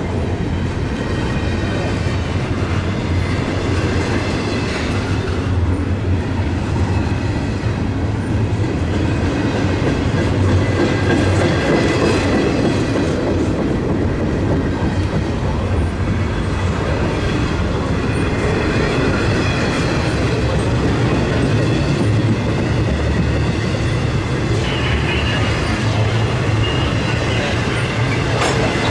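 Intermodal freight train rolling steadily past: double-stack container well cars, then trailers on flatcars, their steel wheels rumbling on the rails. Faint, thin, high squealing sounds above the rumble.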